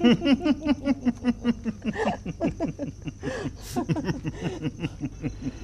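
Hearty human laughter, a quick run of short repeated 'ha' pulses, several a second, dying away near the end, over crickets chirping steadily.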